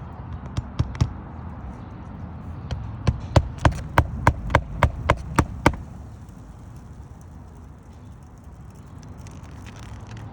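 Hammer blows during an asphalt shingle repair on a roof: three quick strikes early on, then a run of about ten sharp strikes at roughly four a second, over a steady outdoor background hum.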